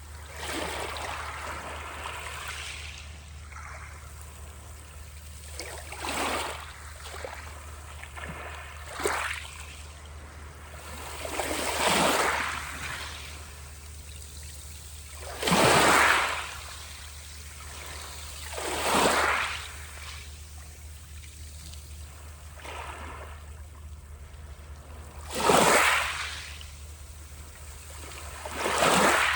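Sea waves breaking and washing up on the shore, a loud surge every three or four seconds over a steady hiss of water.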